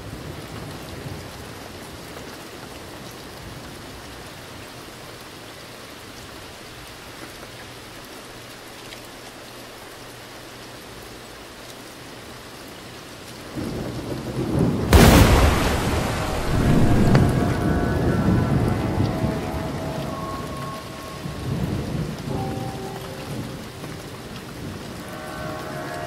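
Steady rain, then about halfway through a thunderclap: a sharp crack followed by a low rumble that rolls on for several seconds and slowly dies away. The crack is the loudest moment.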